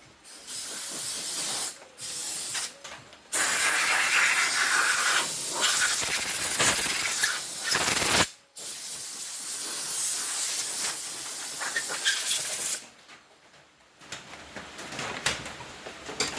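A pressurised jet hissing in several long bursts that start and stop abruptly. The longest burst runs about five seconds, and the hissing dies down near the end.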